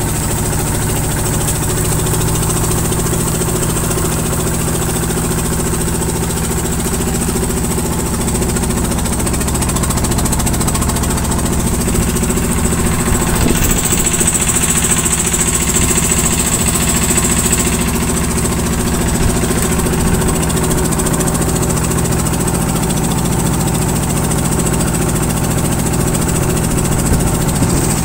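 Engine on a bagan lift-net fishing boat running steadily, a low drone with a thin high whine above it that grows louder for a few seconds midway.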